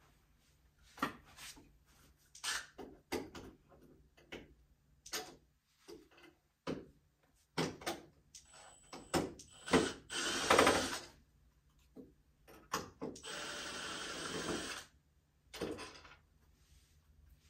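A power drill runs in two short bursts, the second nearly two seconds long at a steady speed, amid scattered knocks and clatter of tools and hardware being handled.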